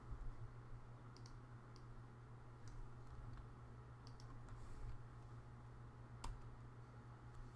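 A handful of scattered computer keyboard clicks, the sharpest about six seconds in, over a low steady hum.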